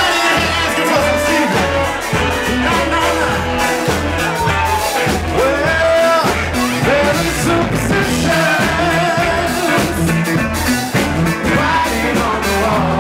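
A live band playing a song: a singer's voice over electric guitar, bass and drums with a steady beat.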